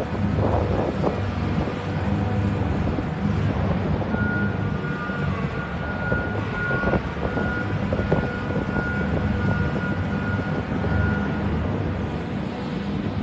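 Engine of a small machine running steadily at the bottom of a deep shaft, a low hum with a few knocks, and a thin steady whine that comes in about a third of the way through and stops near the end.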